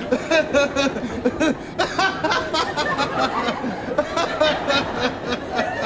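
A passenger laughing without pause, a string of short, rapid bursts of laughter.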